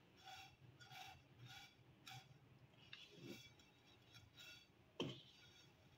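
Faint light scraping and ticking of a silicone spatula stirring fine vermicelli as it roasts in a little ghee in a kadhai. There are a few quick strokes at first, then sparser ones, with one sharper click about five seconds in.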